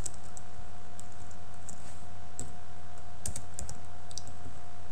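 Computer keyboard typing: scattered keystrokes in short runs, over a steady low hum.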